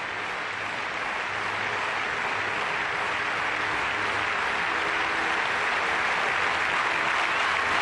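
A large crowd applauding, the applause growing steadily louder.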